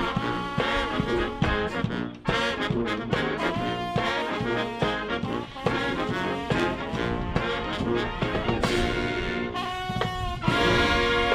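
Marine Corps brass band playing a brisk tune, a trombone out front over a low brass bass line, getting louder near the end.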